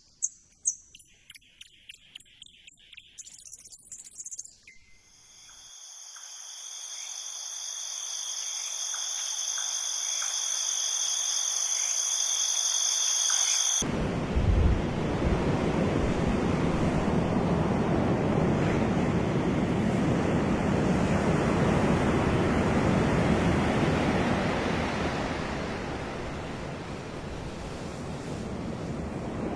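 Played-back nature soundscape: a few sparse clicks and chirps, then a steady high insect buzz that cuts off suddenly about halfway through, giving way to a loud rushing wash of water that swells and eases.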